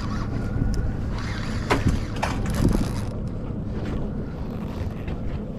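Boat engine idling steadily, with wind buffeting the microphone and a few short knocks about two seconds in.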